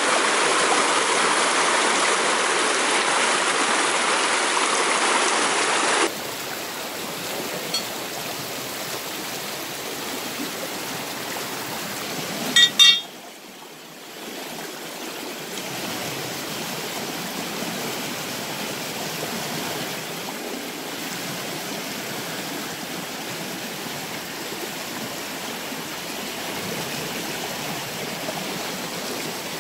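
Fast-flowing river water rushing steadily. It drops abruptly to a quieter flow about six seconds in. Near the middle there is a brief loud double sound.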